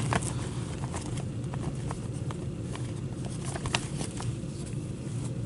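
Gloved hands rummaging in a cloth bag of cardboard cards and drawing one out: scattered, irregular soft clicks and rustling over a steady low hum.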